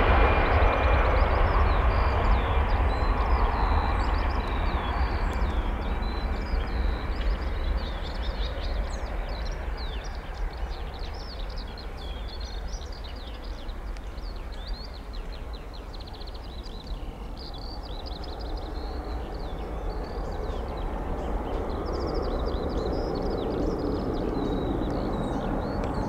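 Airliner engine noise fading away over the first half, while small birds chirp almost continuously. A low engine rumble swells again over the last several seconds.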